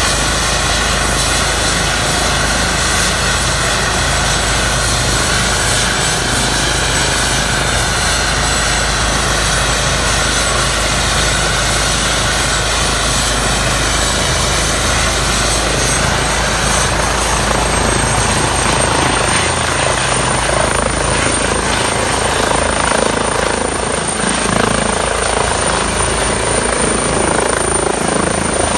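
Airbus EC135 T2+ helicopter with twin Turboméca Arrius 2B2 turboshaft engines running at take-off power, its rotor turning, before it lifts off. The steady rotor and engine noise carries a thin, high turbine whine that rises slightly in pitch about two-thirds of the way through.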